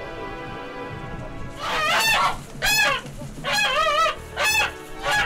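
Domestic geese honking: about five loud, wavering honks in quick succession, starting about a second and a half in.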